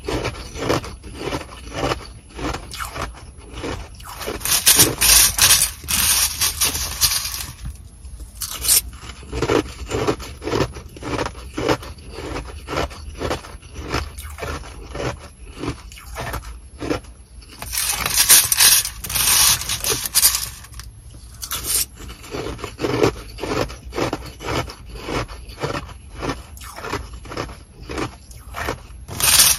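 Close-miked chewing and crunching of Sonic nugget ice, a steady run of crisp crunches two to three a second. Twice, about four seconds in and again past halfway, a plastic spoon scrapes and digs into the bag of ice for a few seconds. These hissing scrapes are the loudest sounds.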